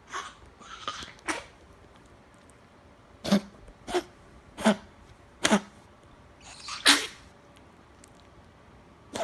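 Small Chihuahua / Miniature Pinscher mix dog coughing and hacking in fits of short, sharp coughs: a few at first, then after a short pause four in a row about two-thirds of a second apart, a longer hack about seven seconds in and one more at the end. This is the hacking cough of a bad case of kennel cough.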